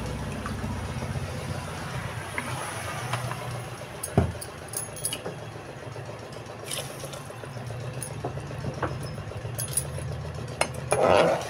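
Steady low rumble of a gas stove burner heating an aluminium pressure cooker, with a few light clinks and a brief rush of noise near the end.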